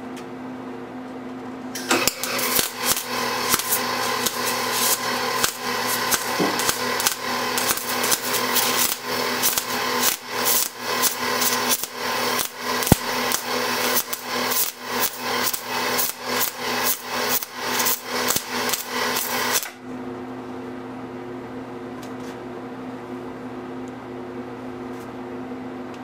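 Wire-feed welder arc crackling and sputtering as a steel nut is welded onto a seat-belt reinforcing plate. The crackle starts about two seconds in and cuts off abruptly near the end, over a steady electrical hum.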